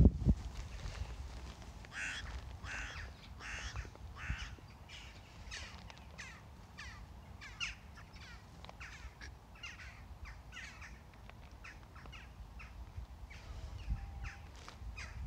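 A flock of crows cawing: many short, harsh calls overlapping one another, thickest in the first few seconds and thinning out later. A low thump right at the start.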